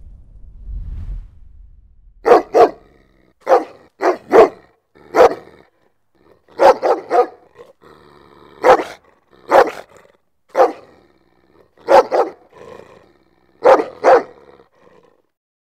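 A large dog barking loudly: single barks and quick double barks at irregular intervals, starting about two seconds in. A low rumble fades out beneath it over the first two seconds.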